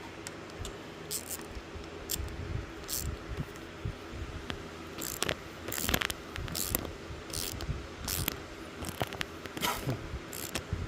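Hand tools being handled and swapped: scattered metal clicks, clinks and short scrapes, with no steady motor run.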